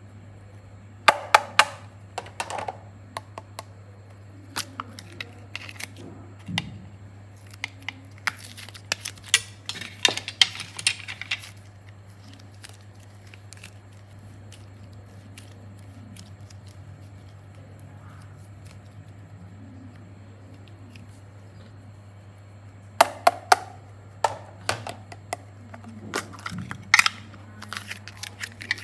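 Soft modelling clay squeezed and kneaded by hand, giving clusters of sharp clicks and crackles. One spell fills roughly the first dozen seconds, a quieter stretch follows, and a second spell comes near the end, all over a steady low hum.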